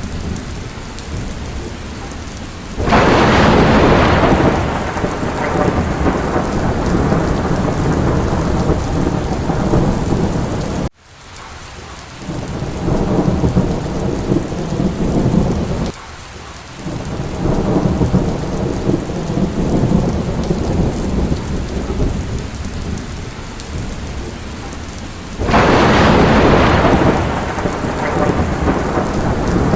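Steady heavy rain of a thunderstorm, with two loud rolls of thunder that break in suddenly and die away slowly, about three seconds in and near the end. The rain sound cuts out for a split second about eleven seconds in, then comes back.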